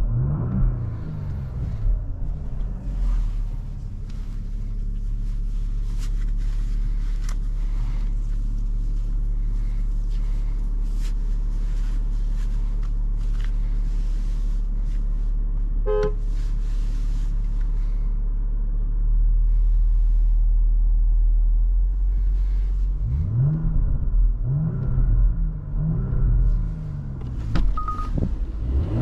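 Porsche Cayenne Coupe's 3.0-litre V6 engine on the move. Revs rise and fall at the start, settle into a long steady drone, grow louder for a few seconds, then climb in several rising pulls near the end as it accelerates through the gears. A short beep sounds about halfway through.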